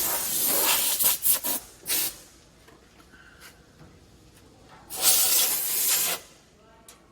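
Two loud hissing bursts of compressed air, each lasting over a second, the first breaking off into a few short puffs.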